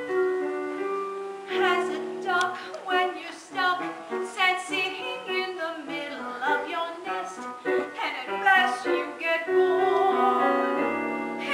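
A song from a stage musical: held piano chords, then singing with vibrato over the piano accompaniment from about a second and a half in.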